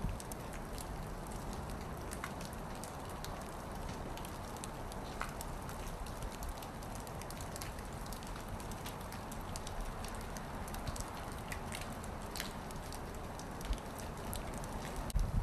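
Heavy snow falling: a steady hiss with many small scattered ticks throughout.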